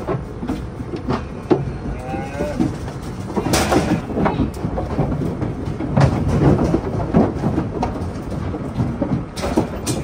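Feeder calves' hooves clattering on the metal floor of a livestock trailer and a metal loading chute as they are unloaded: irregular knocks and bangs, louder bursts about three and a half and six seconds in.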